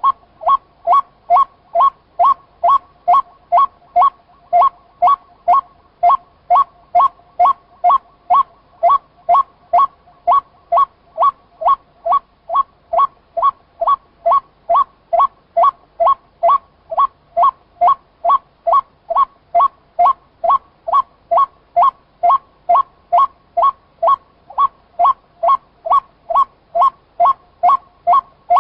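White-breasted waterhen calling: one short note, rising in pitch, repeated steadily about twice a second without a pause.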